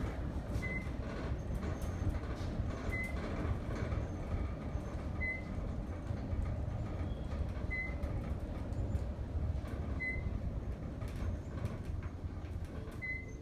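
Otis inclined elevator car travelling with a steady low rumble, its floor-passing chime giving a short high beep six times, about every two and a half seconds.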